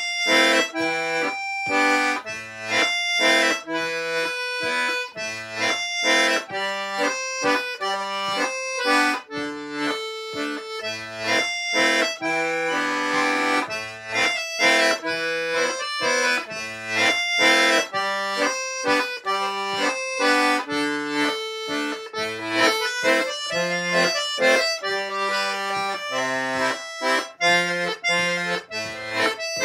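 Diatonic button accordion playing a mazurka: a melody over a bass-and-chord accompaniment in a steady dance rhythm.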